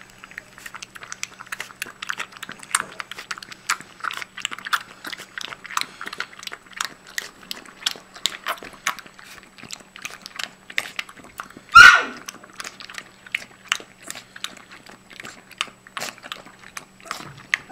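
A young puppy lapping milk from a stainless steel bowl: quick, wet clicking laps, several a second, with no pause. About twelve seconds in, one short, loud, high-pitched cry cuts across the lapping.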